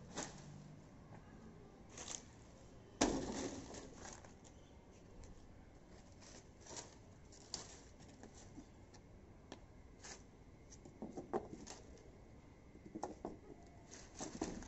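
Sugarcane stalks being handled among dry leaves on a concrete floor: scattered sharp knocks and clicks with some rustling. The loudest knock comes about three seconds in, and a quick run of smaller knocks comes near the end.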